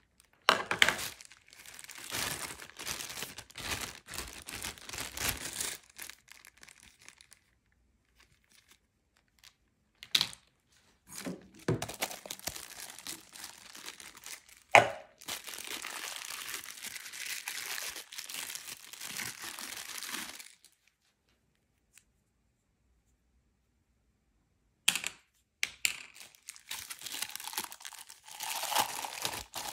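Clear plastic packaging crinkling and tearing as it is unwrapped and peeled off small egg-cooker parts. It comes in spells of several seconds with quiet gaps between them, and a few sharp clicks, one about halfway through being the loudest.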